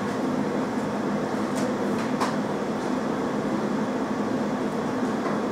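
Jewellery laser welding machine running just after start-up, giving a steady mechanical hum while it boots and self-checks. Two faint clicks come about two seconds in.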